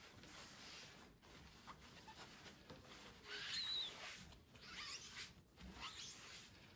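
Faint rubbing and rustling of a damp paper towel wiped in short strokes along a steel knife blade by a gloved hand, the electrolyte pad of a 9-volt battery electro-etch. The strokes come in several short bursts, the strongest about three seconds in.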